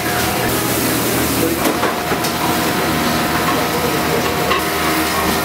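Steady drone and hiss of running commercial kitchen equipment, with a low hum and a thin steady tone, and a few faint clicks.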